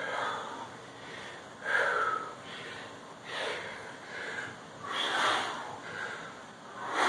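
A man breathing hard from exertion, with a forceful exhale roughly every one and a half seconds, in time with each one-arm dumbbell lift from the floor to overhead.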